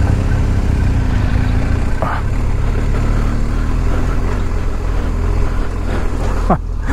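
BMW R 1250 GS boxer-twin engine running under way on a dirt road, a steady low rumble. A short falling tone cuts across it near the end.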